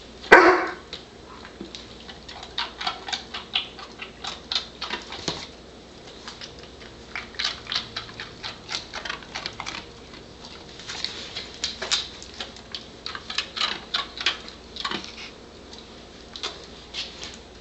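A short falling whine from a Doberman about half a second in, its quiet 'silent' speak on cue. It is followed by clusters of quick, soft clicks and ticks.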